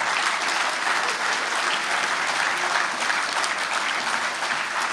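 A lecture audience applauding steadily, tapering off a little near the end.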